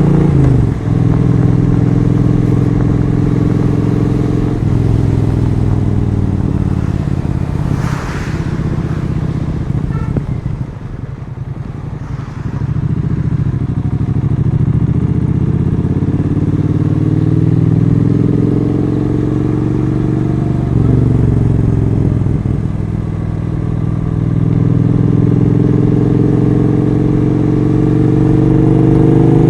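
Triumph Street Twin 900's parallel-twin engine running under way, its note rising and falling with the throttle. It drops back and quietens for a couple of seconds in the middle, then climbs in pitch as it accelerates near the end.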